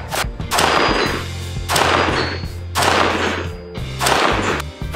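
Background music with a steady bass line, punctuated by four loud, sharp hits about a second apart, each trailing off briefly.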